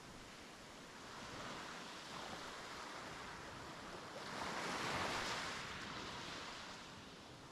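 Small sea waves breaking and washing up a beach shore. One wave surges in about halfway through and is loudest there, then the wash subsides.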